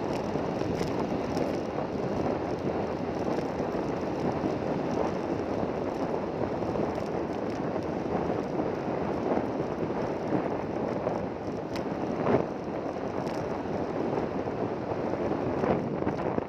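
Steady rushing noise of a vehicle or boat under way, with wind on the microphone and a brief knock about twelve seconds in.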